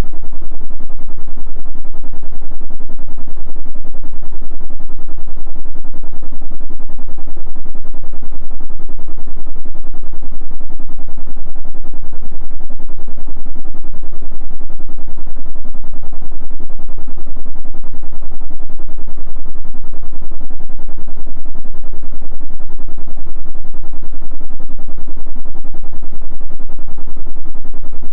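Electric fan running steadily: a loud, even low hum with a fast, regular pulsing from the blades.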